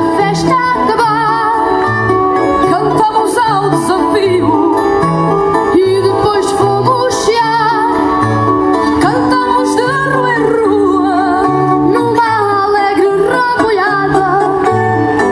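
Fado sung live by young boys' voices, accompanied by a Portuguese guitar's plucked melody and a classical guitar's bass notes.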